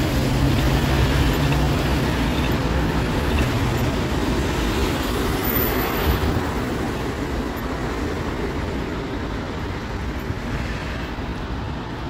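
Street traffic noise: a vehicle's low drone that fades out about four seconds in, with the overall noise slowly dying away as it recedes.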